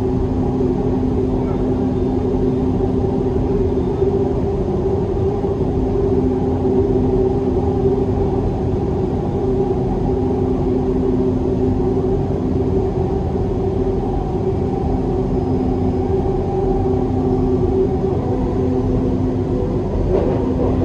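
Dubai Metro train running between stations, heard from inside the car: a steady rumble of the train in motion with a few held tones from its drive.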